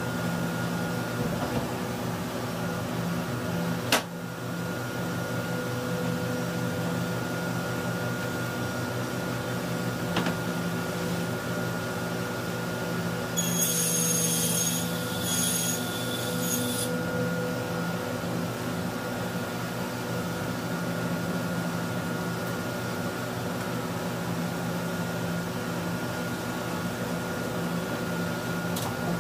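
Steady hum of a running workshop machine motor. A sharp click comes about four seconds in. Around the middle there are a few seconds of high squeaking and scraping as a large board is laid on and slid across the steel table of a table saw.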